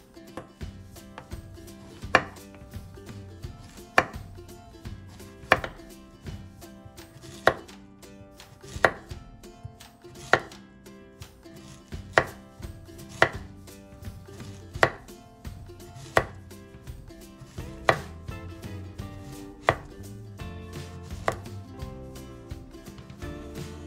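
Chef's knife slicing a Korean zucchini into rounds on a wooden cutting board: a sharp knock of the blade on the board with each cut, about every one and a half to two seconds.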